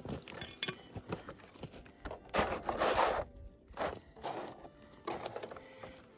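Gritty scraping and scuffing of dug soil and gravel, in short strokes with small knocks, the longest and loudest about two and a half seconds in.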